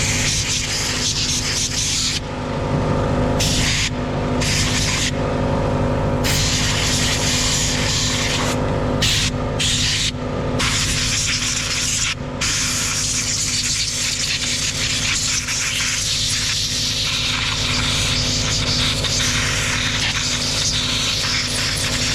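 Air compressor running steadily with a hum and fast pulsing, while a compressed-air blow gun hisses on and off several times and then blows continuously, cleaning fine sawdust out of a chainsaw.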